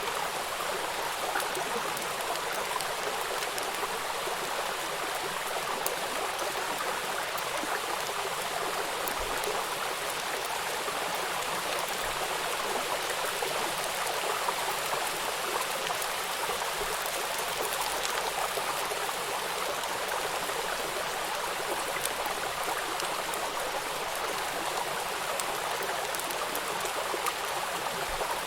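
Steady rain falling, a dense even patter of drops with no pauses.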